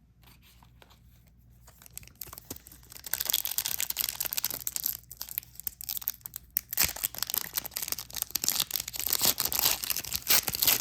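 A trading card pack wrapper being torn open and crinkled by hand, in two spells of crackly rustling separated by a brief pause.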